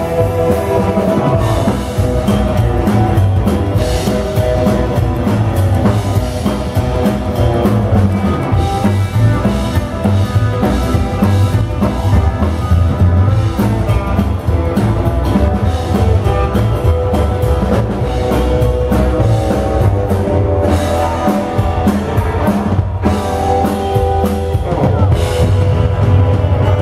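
Live rock band playing loud: drum kit, electric guitar and upright double bass.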